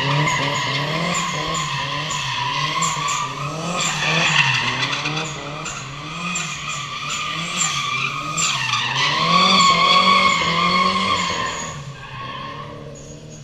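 Drift car sliding in circles, its tyres squealing continuously while the engine revs rise and fall with the throttle. The squeal and engine fade out near the end as the car moves away.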